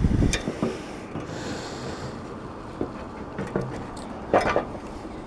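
Scattered knocks and rubbing of a person climbing a ladder, with a louder knock about four seconds in and hissy breaths between.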